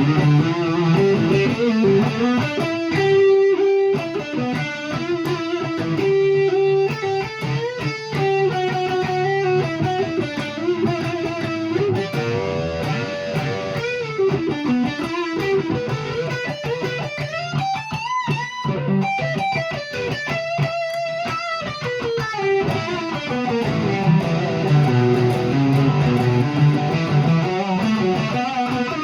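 Electric guitar, a 1989 Fender HM Strat, played through a Peavey Classic 50 amp into a Marshall 1965A 4x10 cabinet. It plays single-note lead lines, with notes sliding and bending in pitch and quick runs in the middle, over lower held notes near the start and end.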